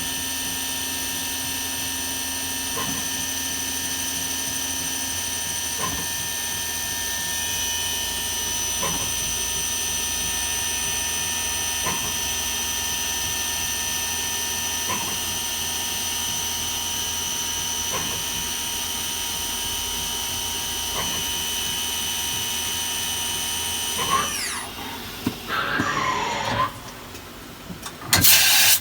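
Kitamura Mycenter 0 CNC machining center running, with a steady high-pitched whine and a faint click about every three seconds. About 24 seconds in, the whine falls in pitch and dies away as the spindle spins down. Some clatter follows, then a loud short burst of noise near the end.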